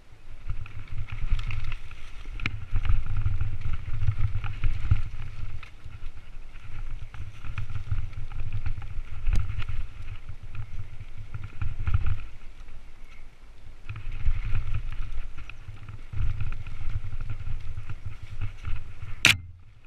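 Mountain bike descending a loose dirt woodland trail, heard from a helmet camera: wind rumble on the microphone with tyre noise and rattling of the bike over the ground, easing briefly twice. Near the end comes a short sharp hiss, and then a moment of quiet.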